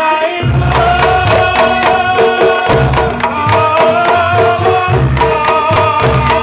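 Reog Ponorogo gamelan playing: the large kendang drum beats out deep strokes in repeated clusters, with a gong, under a sustained, slightly gliding melody line.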